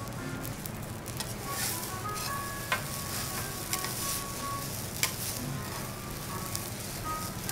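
Metal teppanyaki spatulas scraping and turning garlic fried rice on a steel griddle over a light sizzle, with two sharp metal clinks, one a little under three seconds in and another about five seconds in. Soft tinkling background music plays underneath.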